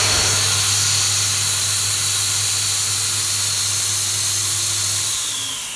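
Stainless-steel electric fogger machine running, its motor whining with a steady hiss of spray. Near the end the hum stops and the whine falls in pitch as the motor runs down.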